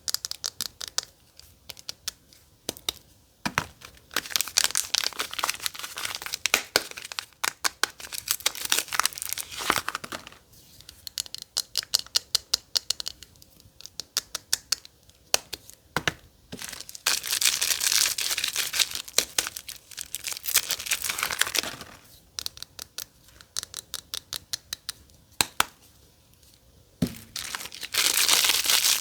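Soap packaging being unwrapped by hand: wrappers crinkling and tearing in bursts of a few seconds, with crackling clicks and short pauses between.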